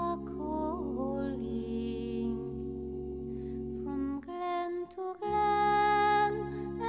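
Slow music of long held, layered tones over a steady low drone; it drops away briefly a little past the middle and comes back fuller and louder.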